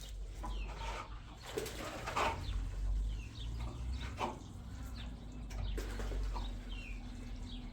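Birds chirping in short calls that slide down in pitch, repeated many times over a low steady hum.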